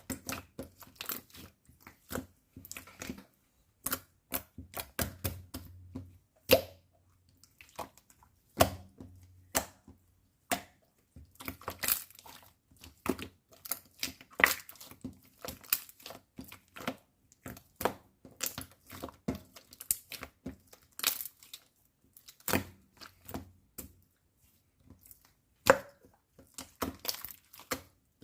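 Strawberry-milk slime being squeezed, pressed and stretched by hand, giving irregular sharp clicks, pops and crackles of trapped air.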